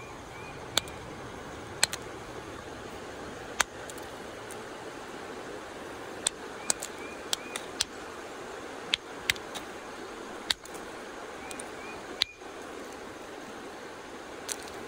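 Quartzite being flintknapped, stone struck on stone: about a dozen sharp, irregularly spaced clicks, some in quick pairs, over a steady background rush.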